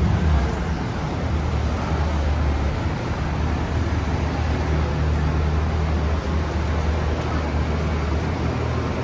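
Street traffic noise dominated by a steady low engine hum from a nearby motor vehicle.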